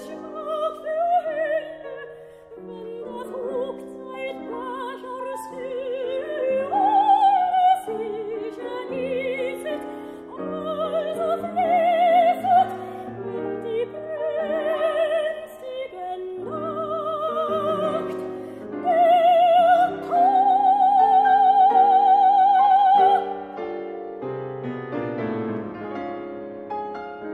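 Background music: classical operatic singing with wide vibrato over piano accompaniment. About twenty seconds in the voice holds one long high note, the loudest part, and then the piano carries on alone.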